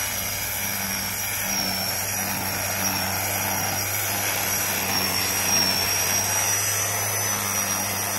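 Corded electric string trimmer running steadily, a high motor whine over a low hum as its single nylon line spins, cutting the grass along the lawn edge.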